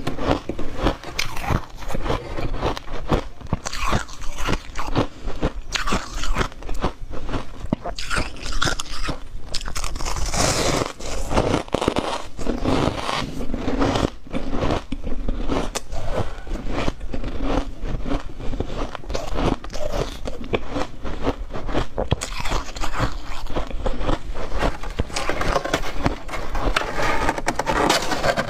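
Close-miked crunching and chewing of mouthfuls of freezer frost ice: a dense, unbroken run of crisp crunches.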